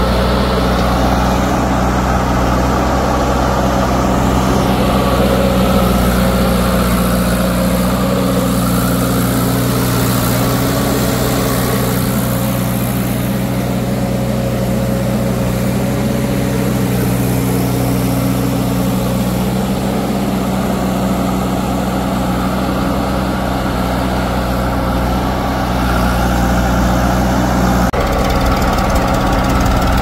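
Heavy diesel engine of a backhoe loader or tractor running steadily at an even speed; its sound changes abruptly about two seconds before the end.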